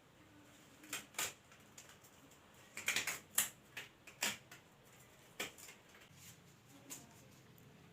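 Disposable examination gloves being pulled on and fitted over the hands: a scattered series of short snaps and rustles, busiest about three to four and a half seconds in.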